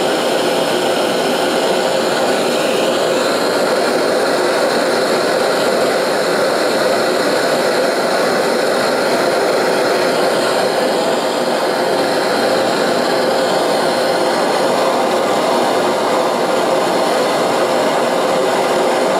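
Handheld gas torch burning steadily as its flame is played along the spine and tang of a hardened 1084 steel blade set in wet sand. This is the soft back draw: it softens the spine and tang while the wet sand keeps the heat off the hardened edge.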